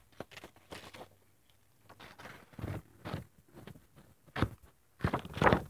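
Irregular scraping and soft knocks as the model steam plant on its wooden base is turned around on its round stand, loudest near the end.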